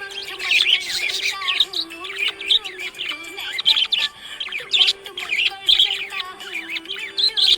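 Budgerigar chirping and warbling in quick, busy bursts, over a background tune held in slow steps.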